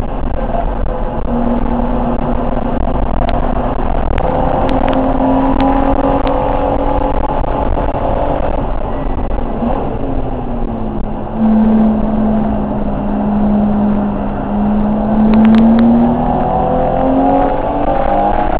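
Straight-six engine of a BMW E30 325 race car at racing speed, heard from inside the cabin, with road and wind noise. The revs climb slowly, fall away about ten seconds in, hold steady, then rise again near the end.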